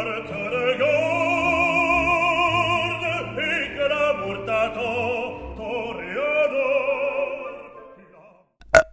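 Operatic singing, a voice with vibrato over orchestral accompaniment, fading out about eight seconds in. A single sharp click near the end.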